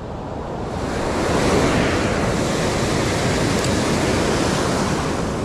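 Ocean surf breaking and washing up the beach. It grows louder over the first second or two, then holds steady.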